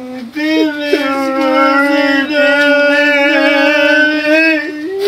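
A person's voice holding one long, slightly wavering note for about four seconds, after shorter sliding cries.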